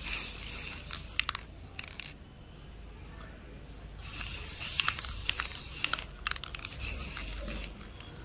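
Aerosol spray-paint can hissing in two bursts: one cuts off about a second and a half in, and a second runs for about two seconds from four seconds in, laying a coat of paint on a motorcycle fuel tank. Sharp crackles of the newspaper masking come between and during the sprays.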